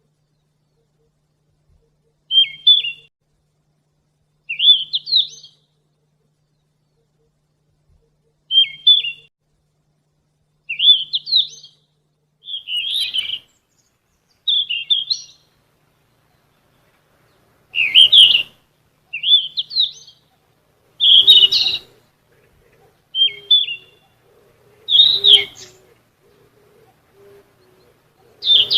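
Sikatan emas, a Ficedula flycatcher, singing: short phrases of high, quickly rising chirpy notes, repeated every two seconds or so. The phrases come more often and louder in the second half, some of them harsher.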